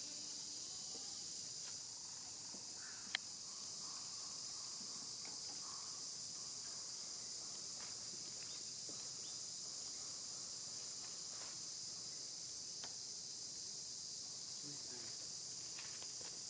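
Steady, high-pitched drone of an insect chorus, with one sharp click about three seconds in.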